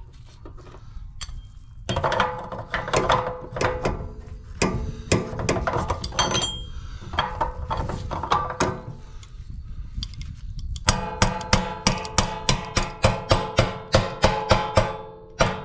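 Background music led by acoustic guitar, with held notes; in the last few seconds it turns into an even, steadily strummed rhythm.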